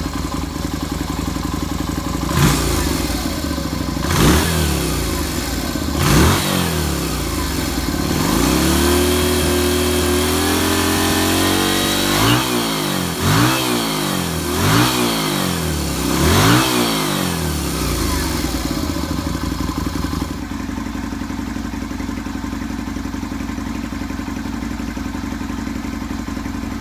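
Yamaha Virago XV250's air-cooled V-twin running through Daytona drag pipes, its throttle blipped: three quick revs, then one rev held for a few seconds, then four quick revs in a row. It settles back to idle.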